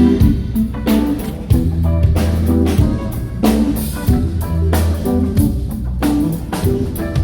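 Live band playing at a sound check: a drum kit beating out a steady rhythm under sustained electric bass notes and guitar.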